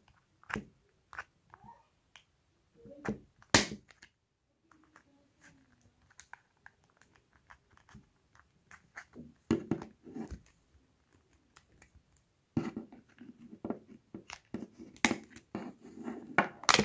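Hard plastic clicks, snaps and knocks as the clip-together casing of a Sony car cassette player's detachable faceplate is unclipped and handled. There is a sharp snap about three and a half seconds in, a few knocks around ten seconds, and a busy run of clicks near the end, with another sharp snap about fifteen seconds in.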